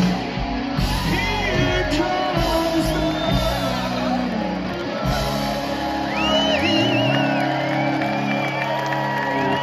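Live rock band playing with vocals, heard from within the crowd, with audience shouts and whoops on top. About halfway through, the deep bass drops away and sustained notes ring on, as the song nears its end.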